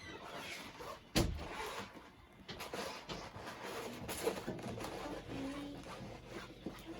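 Handling noise from a stiff diamond-painting canvas being unrolled and flattened: rustling and small scrapes, with one sharp knock about a second in.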